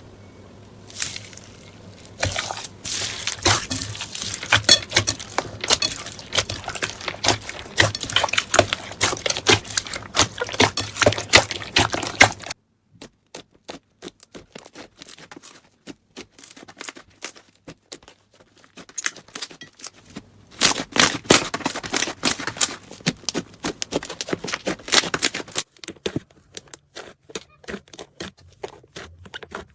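Slime being squeezed and poked by hand in close-up, giving dense runs of small crackles, pops and clicks. The sound drops suddenly about twelve seconds in and stays quieter until it picks up again about twenty seconds in.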